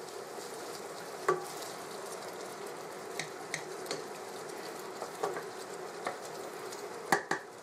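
Minced lamb browning over high heat in a pan, a steady sizzle, while a wooden spoon stirs and breaks it up, with a few short clicks of the spoon against the pan.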